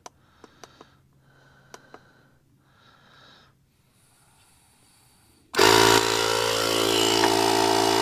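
A few faint clicks, then a JF EGWO jump pack's built-in tyre inflator starts abruptly about five and a half seconds in and runs steadily, pumping up a low backhoe front tyre.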